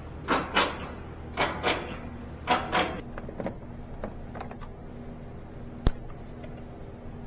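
Hand-tool and parts-handling noises during mechanical work on a car: three pairs of short rasping strokes in the first three seconds, a few lighter ticks, then one sharp click about six seconds in.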